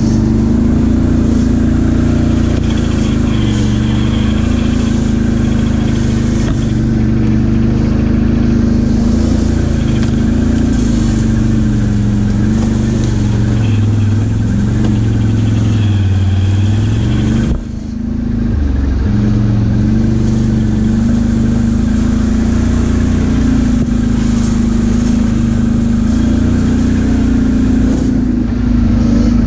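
ATV engine running steadily under throttle as the quad is ridden along a dirt trail, its pitch rising and falling a little with the throttle. About 17 seconds in the throttle is briefly let off and the engine note drops, then picks up again.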